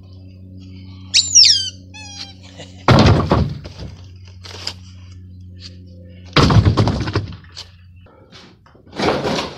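Pieces of demolished plywood and lumber thrown down onto a debris pile, crashing loudly twice, about three seconds apart, with more clattering near the end. A few short high squeaks come just before the first crash.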